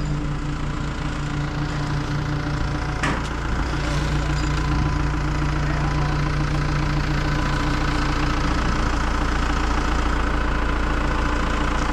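Hino rollback tow truck's diesel engine idling steadily, with a single sharp click about three seconds in.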